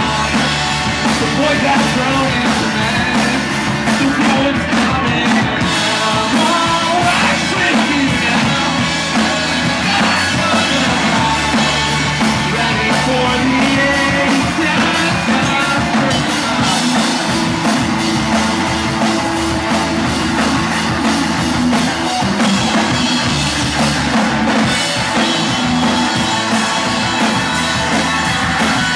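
Live indie rock band playing loud and continuously: electric guitars, bass and drum kit, with some singing.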